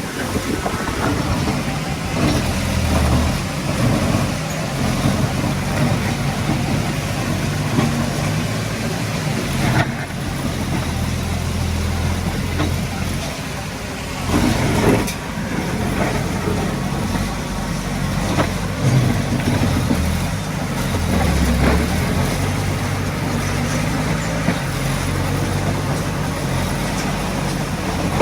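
Heavy diesel earthmoving machinery running and working, the engine note rising and falling with the load, with a few sharp knocks scattered through.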